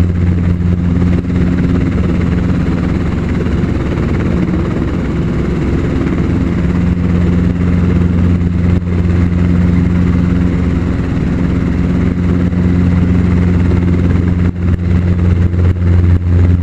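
Helicopter engine and rotor heard from inside the cabin in flight: a loud, steady low drone with a constant pitch.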